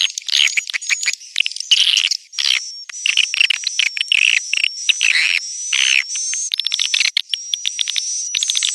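Swiftlets twittering: dense, rapid chirps and clicking trills with a thin high whistle running through. This is the swiftlet call used to lure young swiftlets.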